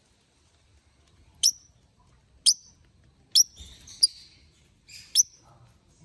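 Lovebirds in a wooden nest box giving five short, sharp, high chirps about a second apart, with a brief scratchy sound just after the third.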